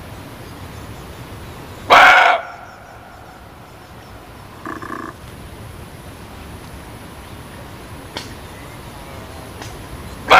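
Muntjac (barking deer) giving two loud, short barks, one about two seconds in and another at the very end, over a steady background hiss.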